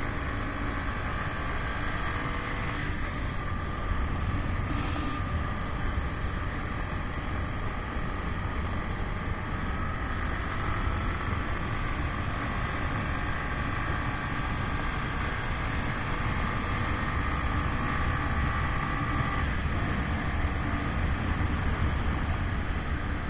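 Motorcycle on the move: its engine runs under a steady rush of wind and road noise, and faint engine tones drift slowly up and down with speed.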